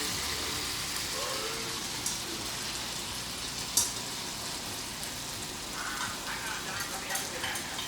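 Food sizzling steadily in a pan on a cooktop, with a few sharp clicks of a utensil against the pan; the loudest comes a little after the middle.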